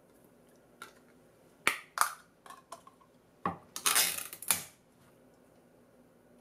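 Ring-pull lid on a metal can of mackerel being opened: a few clicks and taps, then a sharp snap followed by about a second of scraping as the lid is torn back, a little past the middle.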